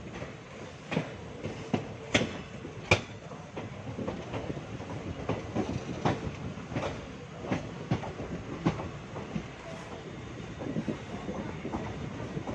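ICF passenger coach wheels running over the track: a steady rolling rumble with irregular sharp clacks as the wheels cross rail joints, the loudest two a little over two and about three seconds in.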